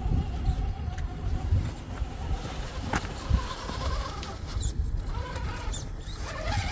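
Axial SCX10 II Honcho RC rock crawler's electric motor and gears whining as it creeps over rocks, the whine rising in pitch near the end. There is a single click about three seconds in, over a low rumble.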